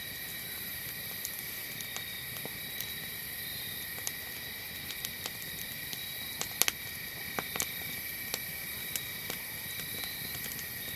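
Night chorus of crickets and other insects trilling steadily, with scattered sharp clicks and pops over it.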